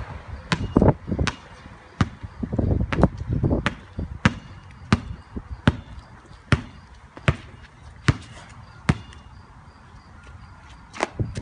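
A basketball dribbled on a concrete driveway: a steady run of sharp bounces, about three every two seconds.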